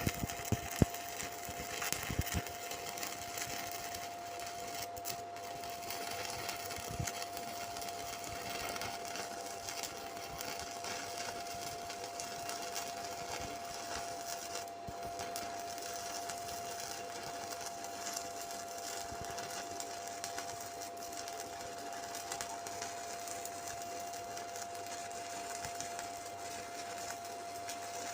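Electric welding arc crackling and hissing steadily, with a steady whine underneath.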